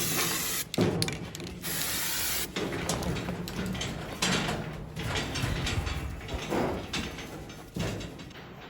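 Aerosol stock-marking spray hissing in two short bursts as a red circle is sprayed on the ewes' backs, followed by scattered knocks and shuffling.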